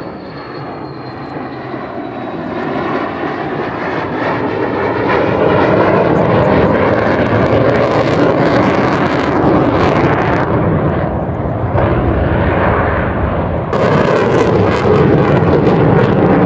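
Sukhoi Su-22 jet's single AL-21F-3 turbojet flying past and climbing away. The engine noise builds steadily over the first several seconds and then stays loud. A thin high whine falls in pitch at the start, and the sound turns harsher and fuller about three seconds before the end.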